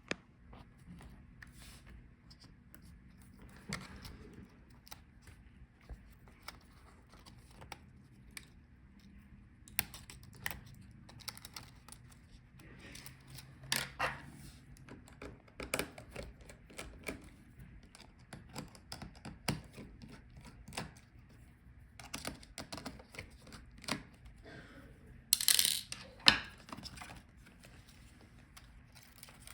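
Scattered small clicks, taps and scrapes of hands and tools on laptop plastic and connectors as the I/O board's cables are disconnected, with a brief louder scraping noise near the end.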